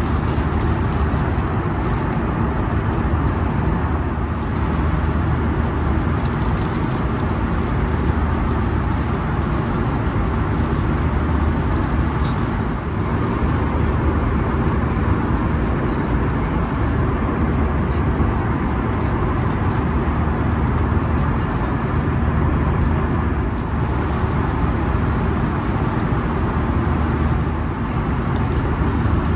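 Steady rushing cabin noise of an Airbus A320 airliner in cruise flight, engine and airflow noise, with a low steady hum underneath.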